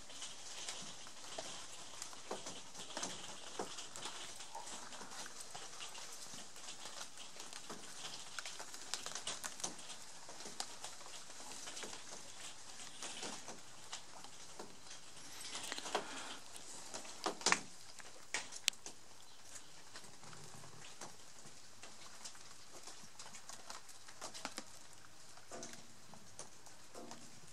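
Footsteps on wooden decking and fern fronds rustling: an irregular patter of light clicks over a soft hiss, with a few sharper clicks about two-thirds of the way through.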